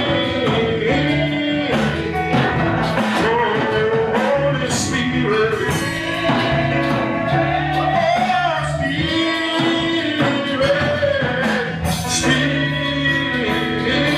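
A church worship band plays a slow gospel worship song, with a voice singing a melody over steady bass and guitar accompaniment.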